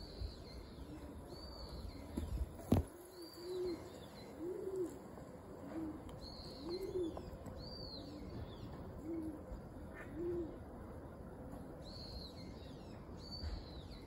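A dove cooing: a run of low coos, each rising and falling, about one a second, from about three seconds in until about ten seconds in. Thin, high bird chirps come and go throughout, and there is one sharp click a little before three seconds in.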